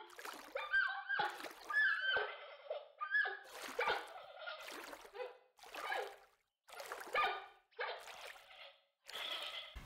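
Recorded sound effect of giant pandas calling: a string of short, pitched, bleat-like calls, roughly one a second, with brief silent gaps between them.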